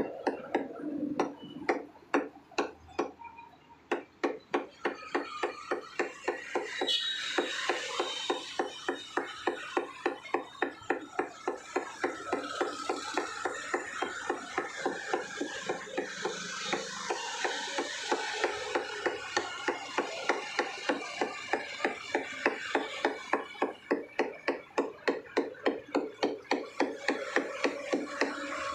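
Butcher's cleaver chopping mutton into mince on a wooden stump block: a steady run of quick knocks, about three to four a second.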